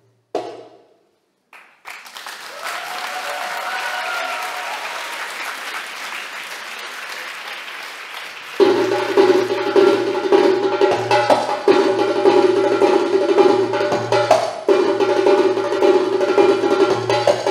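A single darbuka stroke, a short pause, then audience applause with some cheering for about six seconds. About halfway through, the darbuka comes back in loud with a dense stream of fast rolls and strokes, the drum head ringing at a steady pitch.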